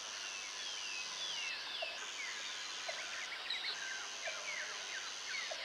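Many small birds singing together at dawn, with overlapping chirps and short falling whistles. Under them runs a steady high, thin buzz that breaks off twice.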